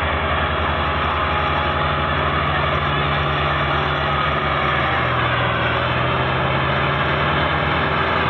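Massey Ferguson 375 tractor's four-cylinder diesel engine running steadily under heavy load while hauling a loaded sugarcane trolley, a low pulsing engine note that dips slightly in pitch about five seconds in.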